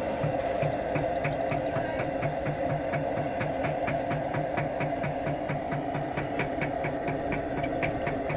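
Lanz Bulldog single-cylinder hot-bulb two-stroke engine running slowly after starting, its evenly spaced beats quickening as it picks up speed, over a steady hum.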